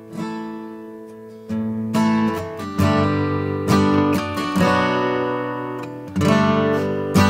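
Close-miked acoustic guitar strummed in chords that ring on, soft at first, with firmer strums from about a second and a half in.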